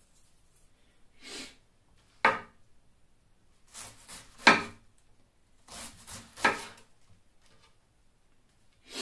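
Kitchen knife slicing through a head of green cabbage onto a wooden cutting board: a handful of separate crisp crunching cuts ending in a knock on the board, spaced irregularly about a second apart, the loudest about halfway through.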